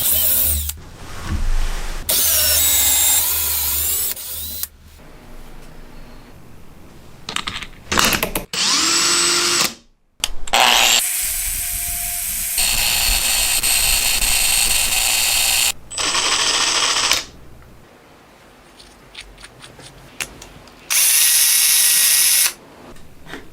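Power tools running in a series of separate runs lasting one to five seconds, with quieter gaps between them. Around a third of the way in, a motor can be heard spinning up in pitch.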